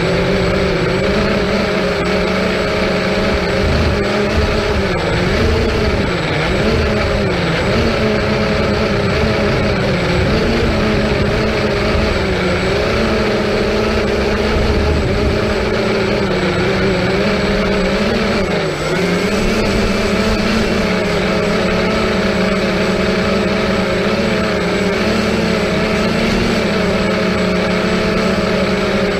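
A drone's motors and propellers humming steadily, the pitch wavering up and down as the throttle changes, with a brief dip in pitch about two-thirds of the way through.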